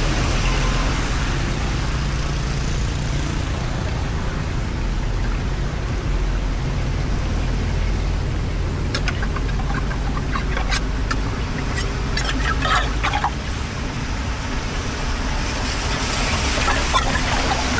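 Excavator engine running steadily, with a run of sharp clattering knocks in the middle.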